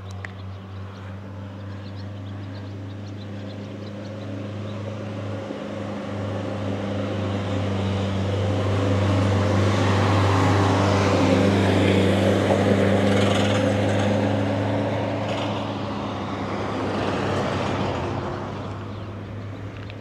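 A motor vehicle's engine running at a steady low pitch, growing louder through the middle and easing off again as the vehicle moves slowly by.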